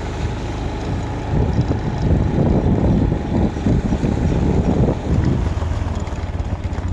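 Wind buffeting the microphone while the camera is on the move: a dense, uneven low rumble that gusts louder from about a second and a half in.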